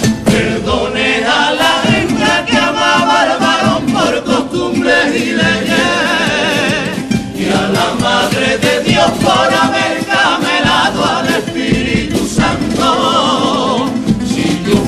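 Comparsa chorus of men singing a carnival pasodoble together in several voices.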